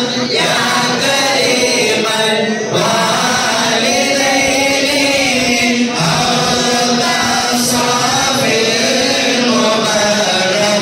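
Mawlid devotional chant sung by a group of voices in unison, a flowing melody with short breaks between phrases.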